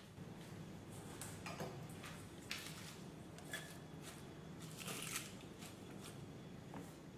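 Faint rustling and brushing of cut water morning glory stems swept by hand across a wooden cutting board into a bowl: a handful of short scrapes over a low steady hum.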